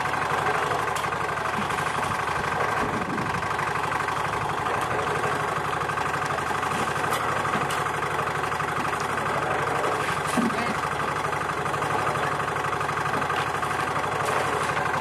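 A small engine running steadily, with now and then a sharp clink of shovels and buckets on gravel and rock.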